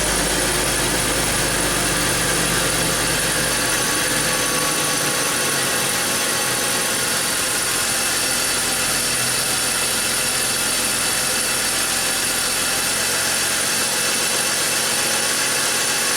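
BMW X5 six-cylinder engine idling. A low rumble fades out about four to five seconds in, and from then on the engine idles evenly, its misfire gone.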